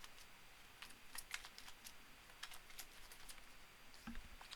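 Faint, scattered light clicks and taps of tarot cards being handled and laid out on a table.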